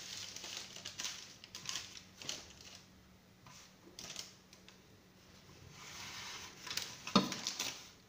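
Sesame seeds rustling and pattering in a metal tray as a ring of simit dough is rolled and pressed in them, in irregular bursts, with a sharp knock near the end.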